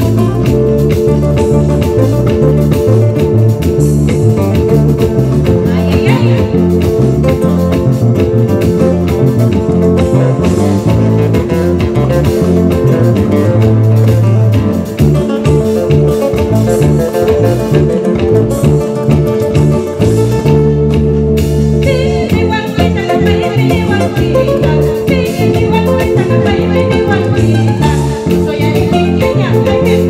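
Amplified live band music led by plucked acoustic guitars over a steady bass line. A woman's singing voice comes in about two-thirds of the way through.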